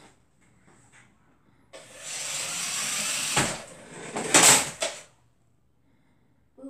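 Small electric motor of a remote-control toy truck whirring for about three seconds, starting about two seconds in. A sharp plastic clatter, the loudest sound, comes about four and a half seconds in as a plastic dustpan and broom topple onto the wood floor.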